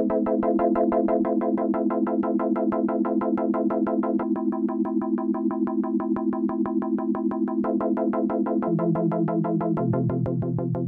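Synthesizer music: held keyboard chords pulsing at a fast, even rate, the chord changing several times.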